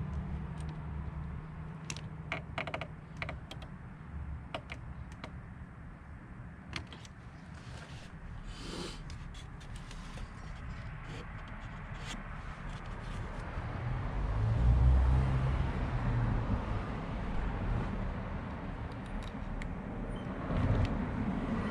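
Scattered light clicks and taps, with a short swish about nine seconds in, over a low rumble that swells for about two seconds past the middle.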